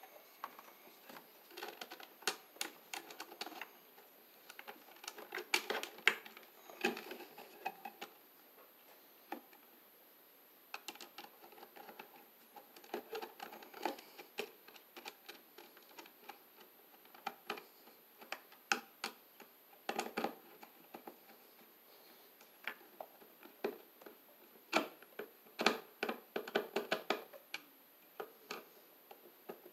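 Irregular clicks, taps and rustles of hands and a screwdriver working on a plastic electrical junction box and the cables fed into it, coming in clusters with short pauses between.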